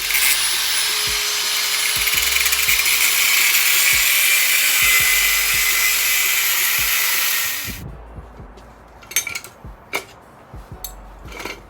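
Power grinder grinding down a steel wrench to make it slimmer: a loud, steady hiss with a faint steady hum, stopping suddenly about eight seconds in. A few light clicks and knocks follow.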